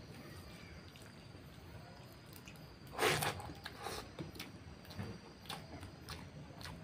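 Wet eating sounds: fingers squishing and kneading rice with pork curry, along with chewing, as scattered small wet clicks and one louder burst about three seconds in.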